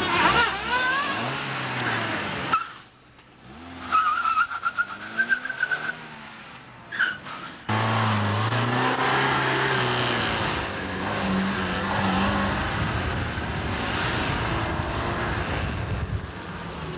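Car engines revving hard and tyres squealing as cars are driven fast round a tight cone slalom on tarmac. From about eight seconds in it is a small Fiat Uno hatchback's engine, revving up and down. The sound drops away suddenly about two and a half seconds in, where there is a high squeal, and comes back abruptly near eight seconds.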